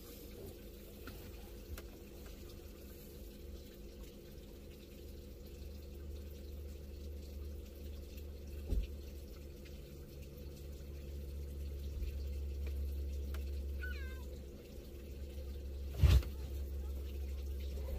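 Nissan GQ Patrol's engine idling steadily, heard from inside the cabin. There is a sharp thump about nine seconds in and a louder one about sixteen seconds in, and a brief high wavering chirp just before the second.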